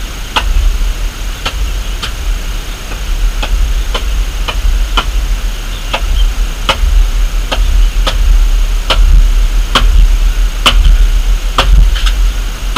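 A carpenter's hand tool striking wood in a steady rhythm, about one blow a second, each a sharp knock with a brief bright ring.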